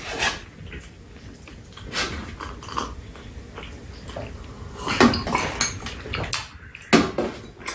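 Eating sounds: chewing and sipping from a mug, with sharp clicks of chopsticks and dishes on a stainless tray, the loudest about five seconds in and again near the end.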